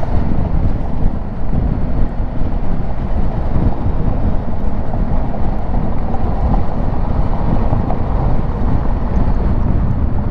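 Kawasaki Versys 650 motorcycle running at a steady cruise, its parallel-twin engine under a steady rush of wind noise on the microphone.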